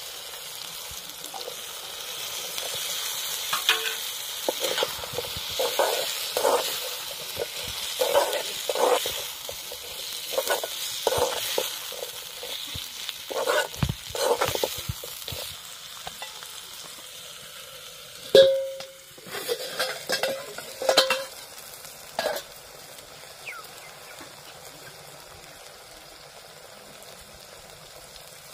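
Snails in their shells and potato pieces sizzling in masala in a steel wok, stirred with a metal spoon that scrapes and knocks against the pan. About 18 seconds in one loud metal clang rings out, followed by a few more knocks, then only a steady, quieter sizzle.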